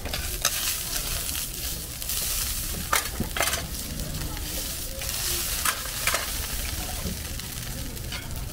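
Sorghum hotteok frying in oil on a flat steel griddle, sizzling steadily, with a handful of sharp metal clinks as the stainless steel dome lids are lifted and set down.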